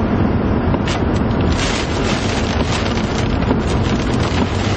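Strong wind rushing and buffeting against the microphone, a loud steady roar that turns gustier about a second and a half in.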